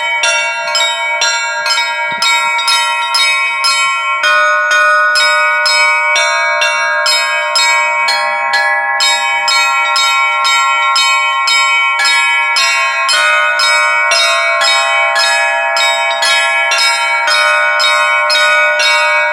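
Orthodox church bells ringing a rapid, even peal of about two to three strikes a second, several bells sounding together, with the mix of bell notes changing every few seconds.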